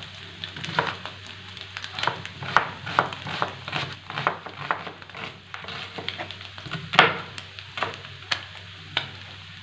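Kitchen knife slicing red onions on a plastic cutting board: uneven knocks of the blade against the board, about two a second, the loudest one about seven seconds in.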